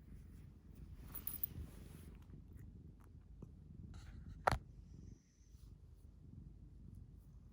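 A resting cat's steady low rumble, its purring snore. A brief rustle about a second in and a sharp click just past halfway.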